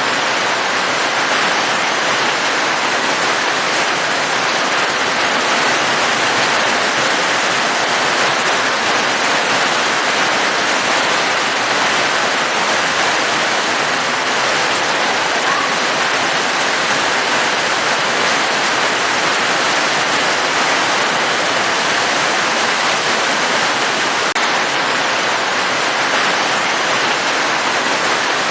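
Steady rain falling: a continuous, even hiss of many drops with no breaks or changes.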